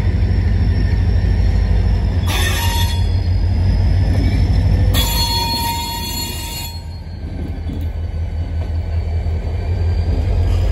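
An approaching diesel locomotive rumbling steadily. Two high-pitched squeals cut in over it, a short one about two seconds in and a longer one about five seconds in.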